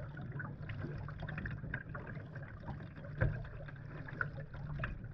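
Kayak paddle strokes with a Werner Kaliste paddle: the blades dipping and pulling through calm water, with dripping and light splashing, and one louder knock about three seconds in.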